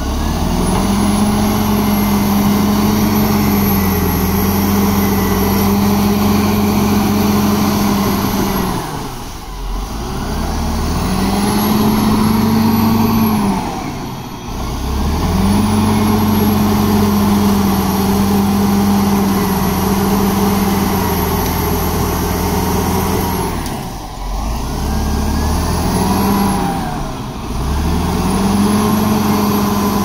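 Caterpillar D7R bulldozer's diesel engine running hard at steady high revs. Four times, the revs sag briefly and pick back up. A faint high whine rises and falls with the engine.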